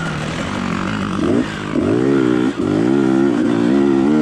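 Motocross bike engine heard from the bike itself, revving up and down as the throttle is worked on the track. The revs rise sharply a little over a second in, drop off briefly about halfway, then climb and hold, with wind rushing over the microphone.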